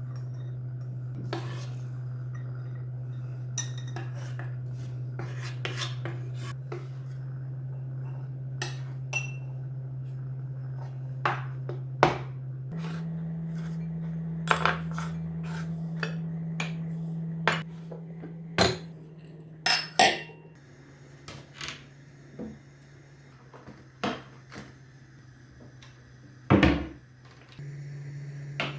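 Dishes and cutlery clinking and knocking in scattered, irregular strikes. Under them runs a steady low hum that shifts pitch several times.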